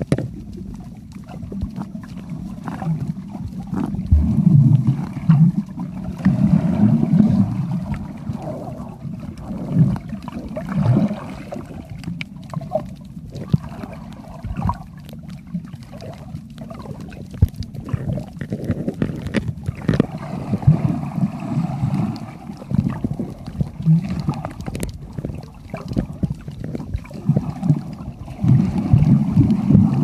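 Muffled underwater noise picked up by a camera held below the surface: uneven low rumbling swells of water noise with scattered sharp clicks.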